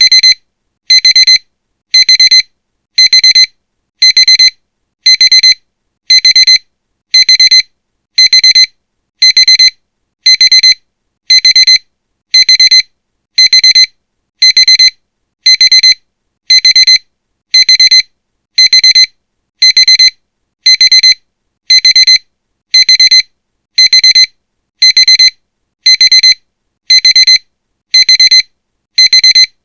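A Honda's key-in-ignition reminder beeping. A high electronic beep repeats steadily about once a second: the warning that the key has been left in the ignition.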